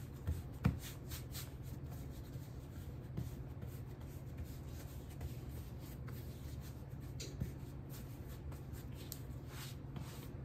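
Hands patting and pressing yeast bread dough flat on a floured silicone mat: soft rubbing and patting with a few light knocks, over a low steady hum.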